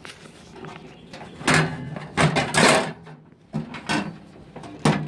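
Camping gear being handled and slid around in a truck bed: a few short bursts of scraping and clattering, the longest about two seconds in.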